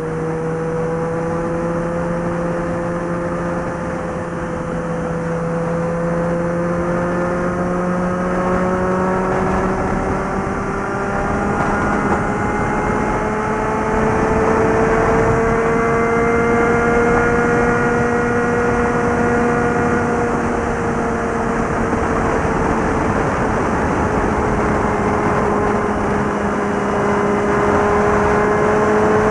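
Suzuki GSX650F's inline-four engine and exhaust running at highway speed, its note climbing slowly in pitch over the first two thirds, easing off a little, then rising again near the end. A steady rush of wind and road noise runs under it.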